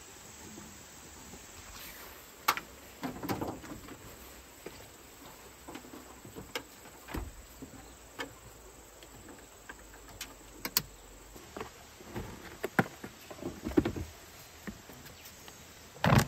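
Camping gear being handled at an open car tailgate: scattered clicks, knocks and short rustles, with the loudest clatter near the end. A steady chirring of insects runs underneath.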